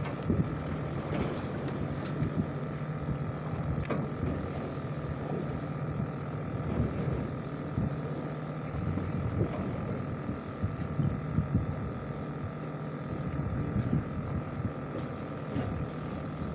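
A boat's engine droning steadily, with irregular wind and water noise over it and a single click about four seconds in.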